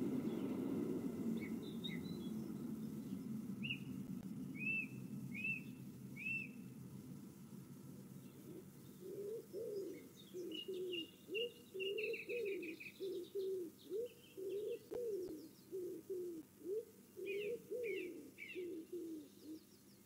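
Small garden birds chirping in short, high notes. From about nine seconds in, a pigeon coos in a long run of low, repeated notes. A low rushing noise at the start fades away over the first several seconds.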